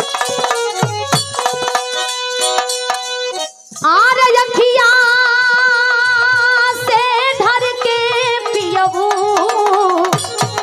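Bhojpuri folk music played live: hand-drum strokes over a steady held tone. About three and a half seconds in it breaks off briefly, then a long wavering melody note slides up and is held with vibrato.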